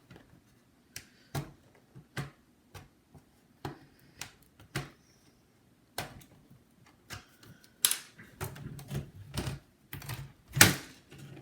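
Plastic snap clips of an HP Pavilion laptop's case clicking and popping as the case is pried apart: irregular sharp clicks, with two louder snaps, one about eight seconds in and one near the end.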